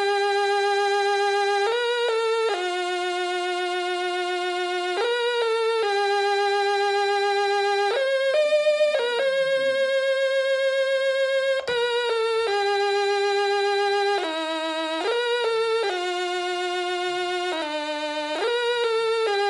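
Stylophone playing a slow melody one note at a time, with a buzzy, reedy tone. Long held notes of two to three seconds with a slight vibrato are linked by short, quick passing notes.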